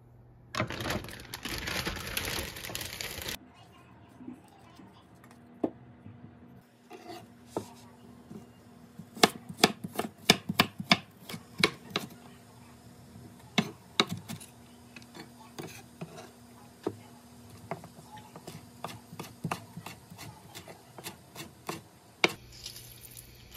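Chef's knife chopping diced onion and then slicing herb leaves on a wooden cutting board: many sharp, irregular knocks, densest in the middle. About three seconds of rushing noise come before the chopping starts.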